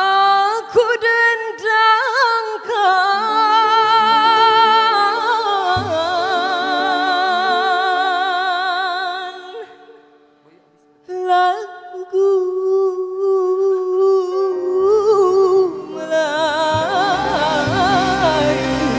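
A woman singing solo, holding long notes with wide vibrato; she stops about ten seconds in and starts again a second later.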